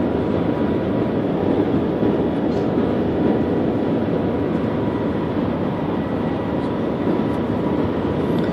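Steady cabin noise of the Shanghai Maglev, a Transrapid magnetic-levitation train, running at high speed: an even rush with a faint steady high tone through it.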